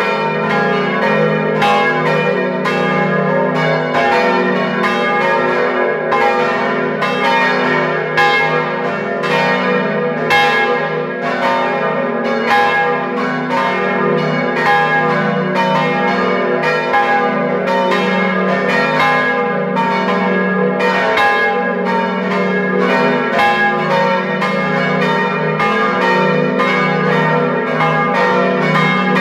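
The five swinging bells of the Utrecht Domtoren (Agnes minor, Kruisklok, Benignus, Adrianus and Jezus Maria Johannes) ringing together in full peal. Heard close up inside the bell chamber, clapper strokes come several times a second, each ringing on into the next in a continuous wash of bell tones.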